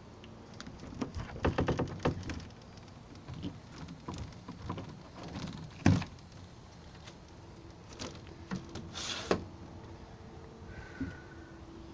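Footsteps crunching on gravel, with scattered knocks and a sharp thud about halfway through.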